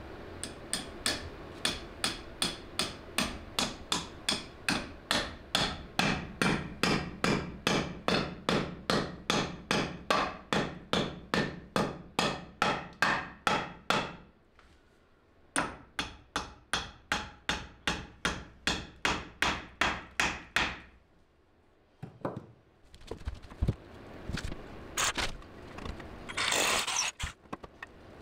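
Claw hammer driving nails into a wooden framing batten: a long run of steady, evenly spaced blows, about three a second, with a short pause about halfway through. Near the end, a few scattered knocks and scraping as the wood is handled.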